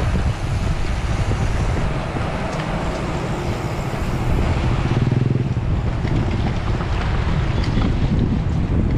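Wind buffeting the microphone of a bike-mounted or rider-worn camera at racing speed, a steady low rumble, with an engine hum rising into it about five seconds in.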